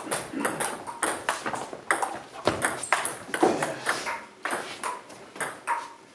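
Table tennis balls ticking on tables and bats: irregular sharp clicks, several a second.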